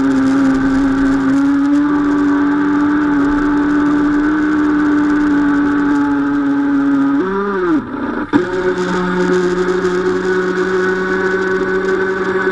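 Twin brushless electric motors of an RC model speedboat whining steadily at speed, with water splashing over the hull. About seven seconds in the whine swoops up, then falls away with a short dip in level, and comes back steady at a higher pitch as the throttle changes.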